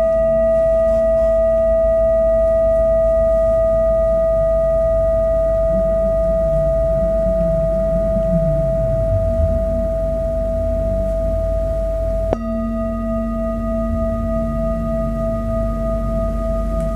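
Large metal singing bowl ringing with one steady, sustained tone and fainter higher overtones after a mallet strike. It is struck again about twelve seconds in, and the ring then wavers in a slow, regular pulse.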